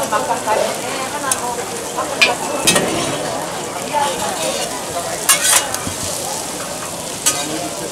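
Korean seafood pancake (buchimgae) sizzling steadily in oil on a flat griddle. Several sharp clicks and scrapes of metal tongs on the griddle plate come through the sizzle.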